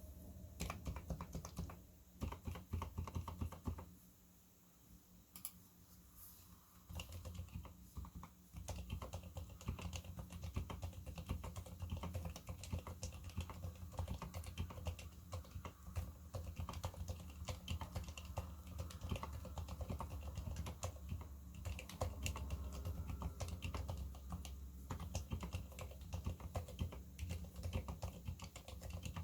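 Typing on a Leopold FC660M keyboard fitted with Cherry MX Silent Red switches, lubed at the springs and sliders, with lubed stabilizers. The key presses come as a fast, continuous run of muted clacks, with a pause of about two seconds a few seconds in.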